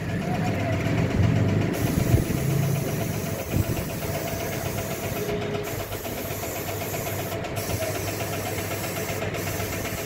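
Large drum washing machine running: a steady motor hum with a constant whine, and a few knocks in the first half.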